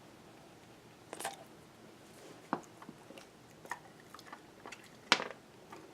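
A dog chewing a treat: scattered crunches and clicks of the teeth, the sharpest about five seconds in.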